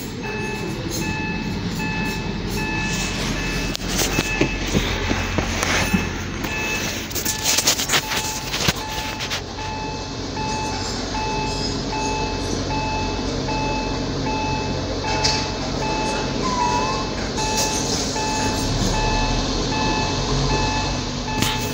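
Rapid, evenly repeating electronic beeping over a steady low engine idle hum inside the pickup's cabin, with a few scattered clicks and knocks.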